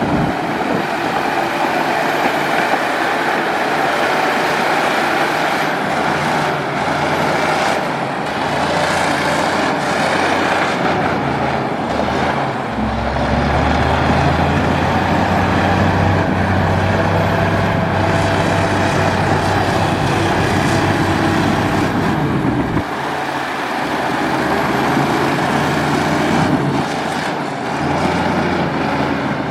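Komatsu D60P bulldozer's diesel engine running while the dozer pushes soil; for about ten seconds in the middle the engine note turns deeper and louder as it works harder, then eases again.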